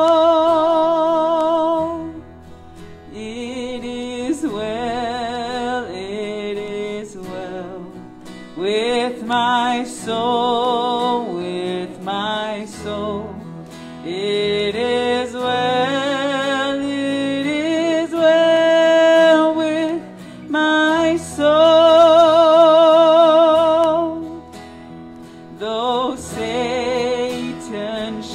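A closing hymn sung to acoustic guitar: a sustained, wavering melody line with short pauses between phrases.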